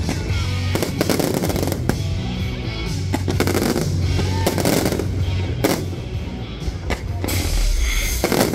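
Aerial firework shells bursting in rapid succession, a stream of sharp bangs and crackles, with a deep boom near the end. Music with a heavy bass line plays underneath.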